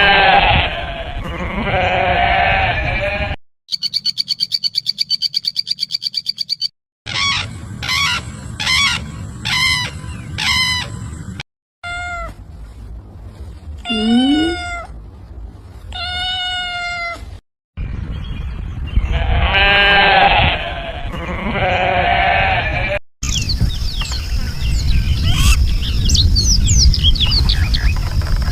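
A string of separate animal calls cut one after another. Bleating opens the run and comes back about two-thirds of the way through; in between are a fast pulsing high trill and several short repeated calls, one of which rises in pitch.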